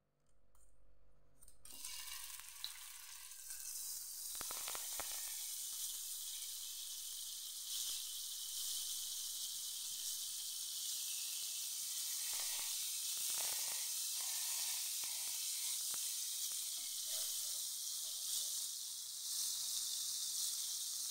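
Margarine melting and sizzling in a hot non-stick frying pan: the sizzle starts about two seconds in and then holds as a steady hiss, with a few light scrapes of a metal spoon spreading it across the pan.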